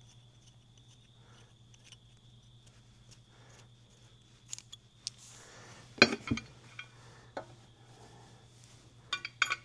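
Steel suspension hardware (U-bolts, nuts and washers) being handled: scattered clinks and a sharp knock about six seconds in, then a quick run of metal-on-metal clinks near the end. A steady low hum runs underneath.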